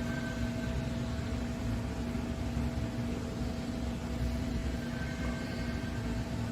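Vehicle running steadily: a constant hum over an even rumbling noise, with no revving or changes.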